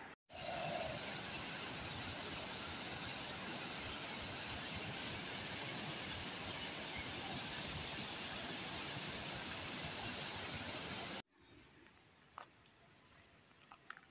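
Small mountain waterfall cascading over rocks: a loud, steady rush of water that cuts off abruptly about eleven seconds in. A much quieter outdoor background with a few faint ticks follows.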